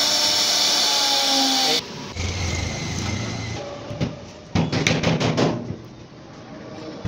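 A 1325 CNC router's spindle cutting wood: loud, dense noise with a steady whine, which cuts off abruptly a little under two seconds in. Then a hammer strikes a wooden board several times in quick succession, about four to five and a half seconds in.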